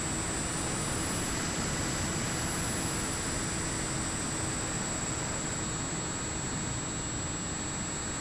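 Bixler 3 RC plane's brushless electric motor and pusher propeller running in flight, heard from the onboard camera as a steady rush of propeller and wind noise with a high electric whine. The whine rises in pitch about a second in and falls back by about five seconds.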